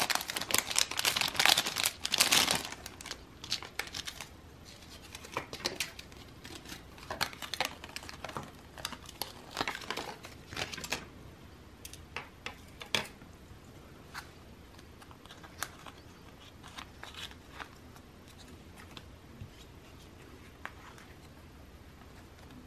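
Plastic packaging and photocard sleeves crinkling as they are handled, densest in the first couple of seconds. Scattered light clicks and taps follow and thin out in the second half.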